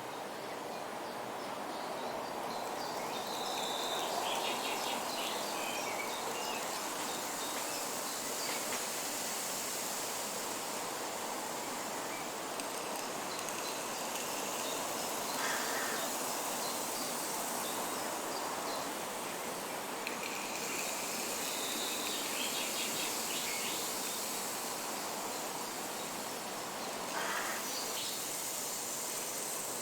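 Forest nature soundscape with a rain stick: a steady, even hiss, with insects trilling and birds chirping in two rapid bursts and a couple of short calls.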